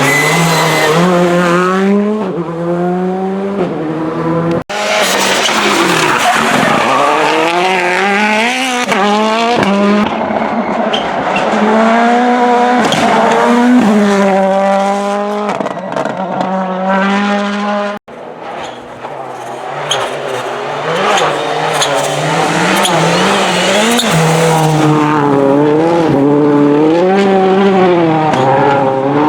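Rally cars at full attack on a special stage, engines revving hard and climbing and falling in pitch through repeated gear changes, with tyre squeal. The sound breaks off suddenly twice, so three separate passes are heard.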